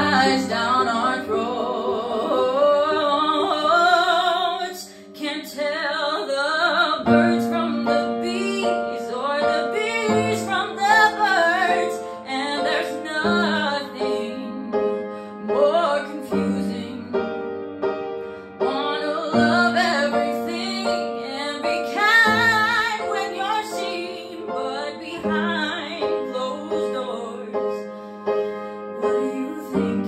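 A teenage girl singing a slow song with vibrato, accompanied by piano; low bass chords join about seven seconds in.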